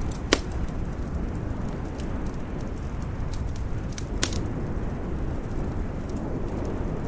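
Wood fire crackling in a fireplace: a sharp pop about a third of a second in and another a little past four seconds, with faint ticks in between, over a steady low rushing noise.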